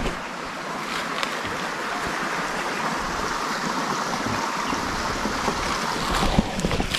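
Small, fast-flowing river: a steady rush of running water.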